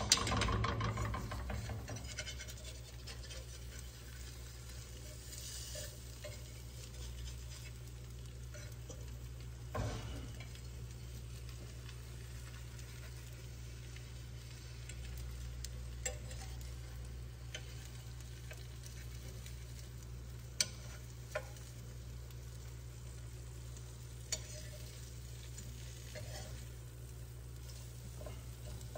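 Eggs frying softly in a nonstick skillet. A fork scrapes and clicks rapidly against the pan for the first couple of seconds, then there are a few scattered sharp taps of a metal utensil on the pan.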